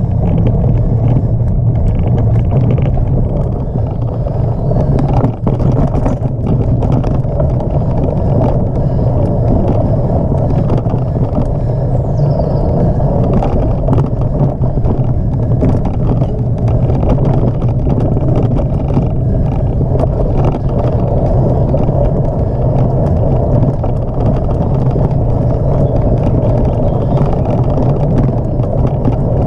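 Wind buffeting the microphone of a handlebar-mounted camera on a mountain bike riding fast along a dirt trail, a steady low rumble with the tyres rolling over the ground. Short knocks and rattles come from the bike going over bumps.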